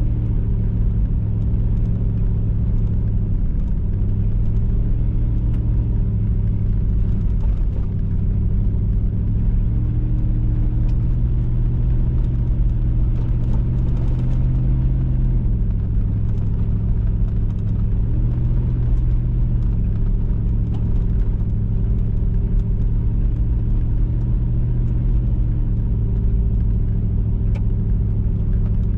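A vehicle engine running while driving, with a steady low rumble. Its pitch steps down and back up several times as the speed changes.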